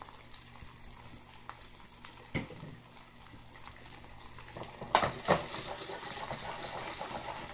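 Boneless chicken-breast pieces frying in a skillet, a steady sizzle that is faint at first and grows louder about five seconds in. There is one knock about two seconds in and then two sharp metal clinks from the pan at about five seconds.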